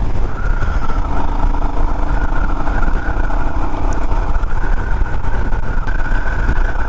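Motorcycle riding at road speed: steady heavy wind rumble on the rider's camera microphone, with the engine's drone underneath.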